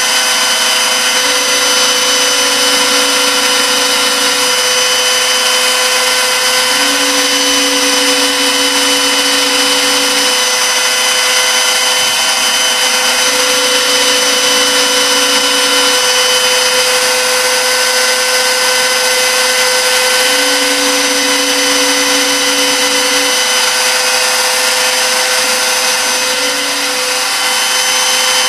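Small CNC milling machine cutting 6061 aluminium with a small end mill: the spindle runs with a steady whine and cutting noise. Beneath it, a lower hum steps between two pitches every few seconds.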